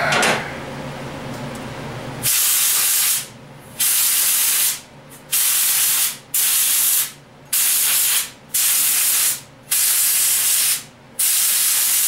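A short handling knock at the start, then about eight short hissing sprays, each just under a second and evenly spaced, directed into a small-block Chevy 350 cylinder head during cleaning.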